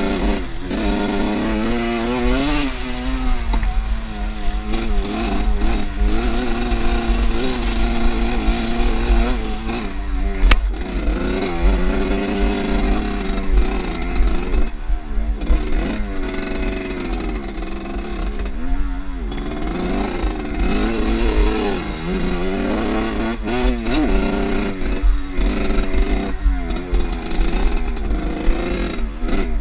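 Off-road motorcycle engine being ridden, its revs rising and falling repeatedly as the throttle is opened and closed.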